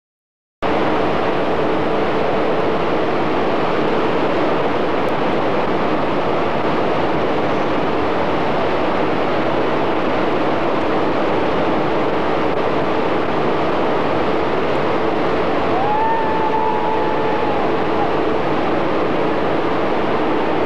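Steady rush of whitewater in tidal rapids. About 16 seconds in, a brief high tone rises over it and holds for about two seconds.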